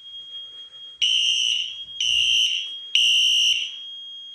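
Fire alarm horns sounding in sync in the temporal-3 evacuation pattern: a pause, then three high blasts of about half a second each, then another pause. A faint steady high tone carries on through the gaps.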